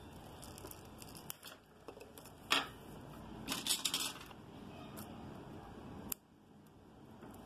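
Small clicks and rustles of a shielded Cat6A cable being handled, with a crinkly rustle of its foil shield a few seconds in. About six seconds in, a pair of scissors closes with one sharp snip, cutting at the stripped cable end.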